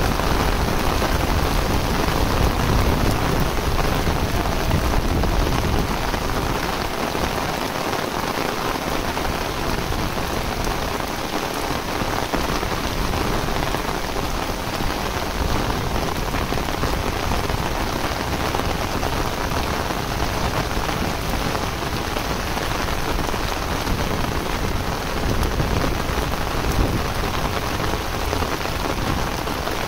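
Heavy rain falling steadily on foliage and a concrete path, an even hiss throughout, with a low rumble underneath for the first several seconds.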